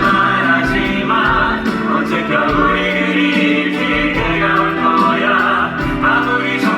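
A musical-theatre song: several voices singing together over instrumental accompaniment, with long held notes that change every second or so.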